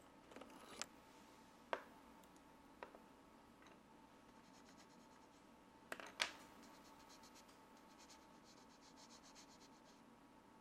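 Faint pencil scratching on paper: a few sharp taps, the loudest about six seconds in, then a run of quick light strokes, about five a second.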